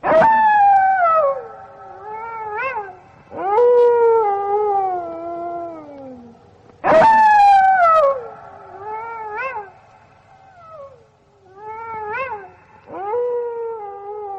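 Wolves howling: three long howls that start high and slide down in pitch, with shorter rising-and-falling calls between them.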